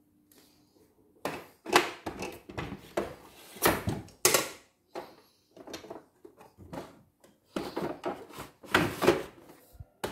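Cardboard box and its styrofoam and plastic packing being handled: a string of irregular rustles, scrapes and knocks.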